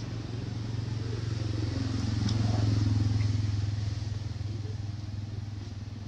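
A motor vehicle engine passing by: a steady low hum that grows louder to a peak about halfway through, then fades away.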